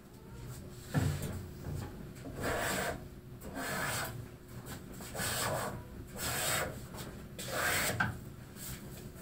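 Stanley No. 7 jointer plane, its sole waxed with beeswax, cutting shavings along the edge of a white ash board: five long planing strokes, about one every 1.2 seconds. A single knock comes about a second in.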